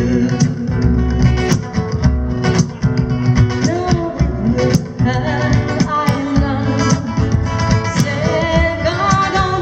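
Live Irish folk music: fiddle and strummed acoustic guitar over a frame drum beat, playing a lively tune.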